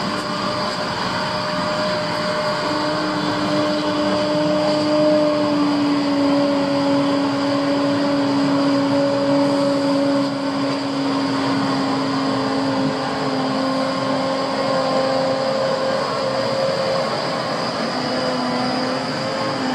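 Volvo FH16 750 log truck's 16-litre straight-six diesel running as the loaded truck drives slowly up and past. It makes a steady drone with a held whine that drifts slightly in pitch.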